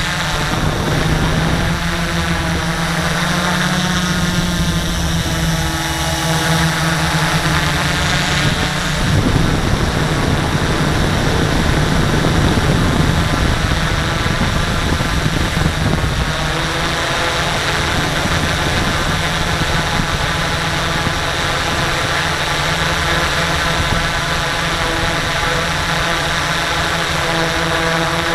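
X650 electric multirotor's motors and propellers whirring steadily in flight, heard close up from the onboard camera. The hum turns rougher and a little louder for several seconds in the middle, then settles back to a steady tone.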